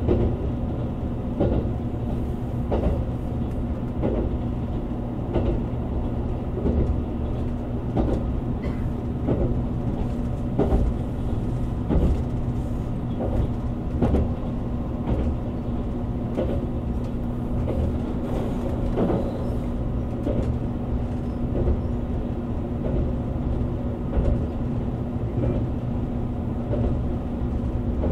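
Cabin running noise of a JR Kyushu 787 series electric limited express train under way: a steady low hum with evenly spaced knocks a little over a second apart as the wheels pass over rail joints.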